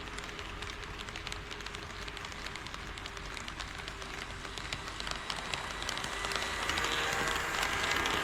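HO-scale model train running on KATO Unitrack, a steady rolling rush with many small irregular clicks, growing louder over the last few seconds.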